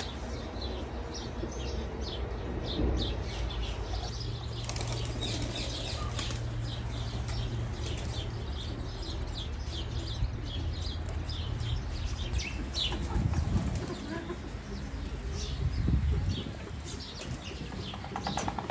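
Aviary birds: many short high chirps throughout, with pigeons' wings flapping over a low rumble that swells twice in the second half.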